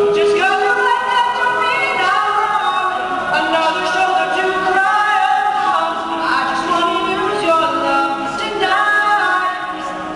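All-male a cappella group singing in close harmony without instruments, holding chords that change every second or so, a little quieter near the end.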